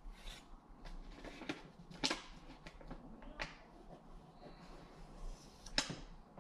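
Pencil scratching on drywall while an outline is traced around a small wall plate, with scattered short strokes and a few sharp clicks; the loudest clicks come about two seconds in and near the end.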